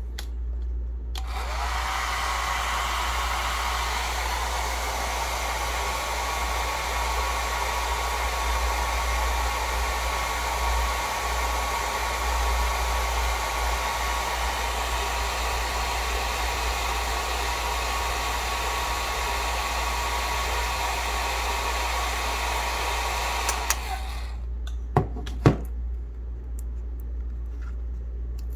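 A small 1200 W hair dryer blowing steadily, switched on about a second in and cut off near the end, heating the underside of a computer mouse to soften the glue under its feet. A few sharp clicks follow once it stops.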